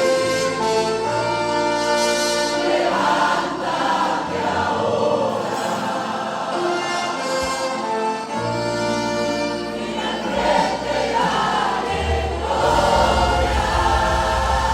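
Church choir singing a worship song in held chords with instrumental accompaniment; strong low bass notes come in near the end.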